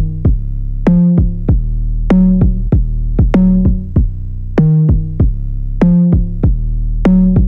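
Instrumental intro of an electronic pop song: a drum-machine beat with a pitched synth note, the same short pattern repeating about every 1.2 seconds.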